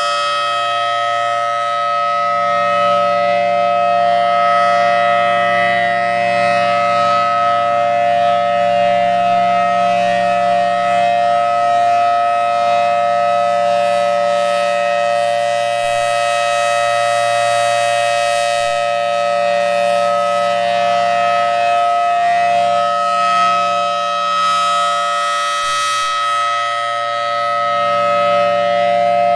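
Federal Signal Thunderbolt 1000T dual-tone outdoor warning siren sounding its steady full-alert tone, extremely loud. Its chord swells and fades slowly as the rotating horn turns. It has missed the cancel tones, so it runs the 3-minute full alert instead of the usual 1-minute test.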